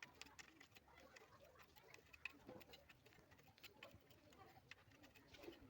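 Near silence with faint, scattered ticks and clicks.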